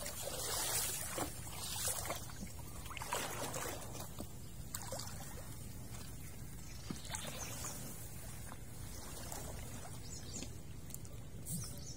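Soft splashing and trickling of water, with a few light knocks.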